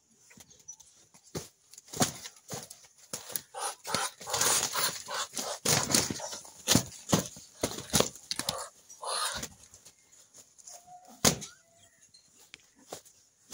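A Muscovy drake and a rooster fighting: wings beating and bodies scuffling in a string of sharp slaps, densest in the middle, with one lone loud slap near the end.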